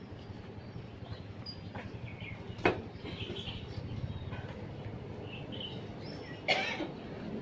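A steady low hum of background noise with a few short, high chirps. Two sharp knocks stand out, one partway through and one near the end.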